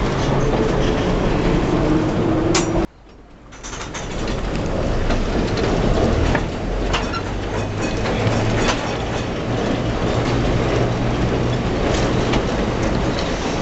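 Historic tram running along its track, with steady running noise and irregular clicks and knocks from the wheels and car body. Just before three seconds in the sound cuts out suddenly, then the tram's running noise builds back up.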